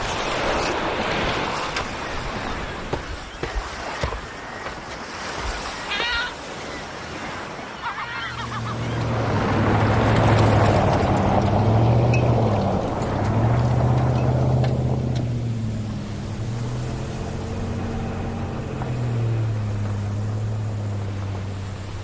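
Surf and wind on a beach, with a few short gull calls about six seconds in. After that, a pickup truck drives by on a dirt road: the tyre and engine noise swells and fades, over a low drone.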